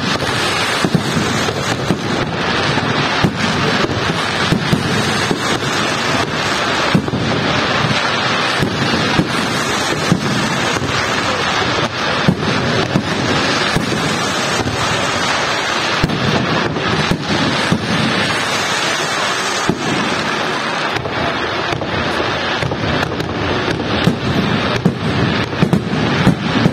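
Fireworks display going off without pause: a dense, continuous crackle from ground fountains and rising rockets, punctuated by many sharp bangs of shells bursting overhead.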